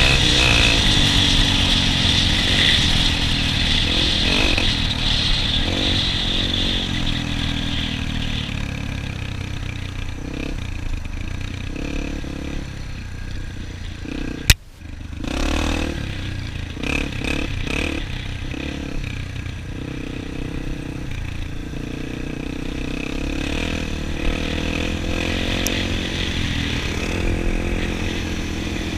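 Dirt bike engine running throughout, its pitch rising and falling with the throttle. A sharp click and a brief dropout come about halfway through.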